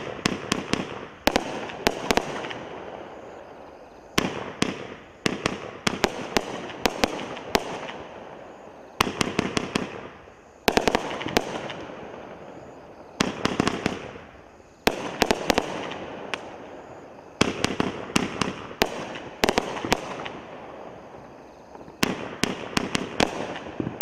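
Voodoo Devils 500-gram multi-shot firework cake firing its brocade bouquet shots. A cluster of sharp bangs comes every second or two as the shots launch and burst, each cluster trailing off into a fading hiss before the next.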